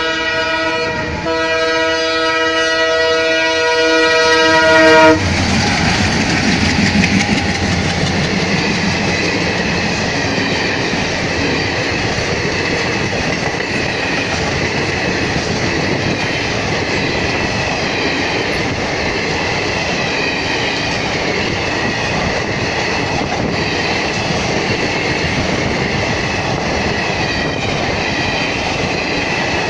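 Horn of twin WDM-3D diesel locomotives sounding long and steady, with a brief break about a second in, cutting off about five seconds in as the locomotives reach the crossing. The two locomotives then pass close by, their diesel engines chugging under load up the gradient, followed by the steady rumble and clatter of the train's coaches running over the rails.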